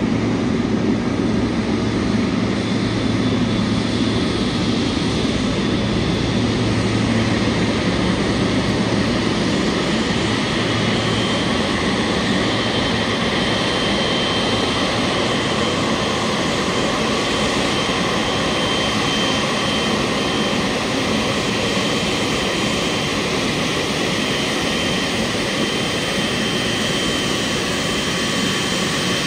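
Jet turbine running steadily: dense, even engine noise with a thin high whine held throughout.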